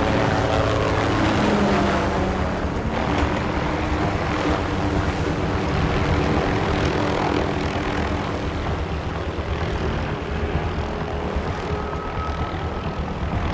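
Small MD 500-style helicopter hovering close overhead: fast rotor chop over a steady engine whine.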